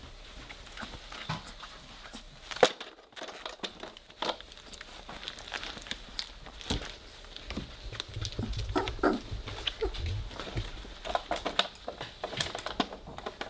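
Three-week-old Weimaraner puppies squirming and jostling together on bedding: scuffling, rustling and small puppy noises, with a few short squeaks about nine seconds in. One sharp knock about two and a half seconds in is the loudest sound.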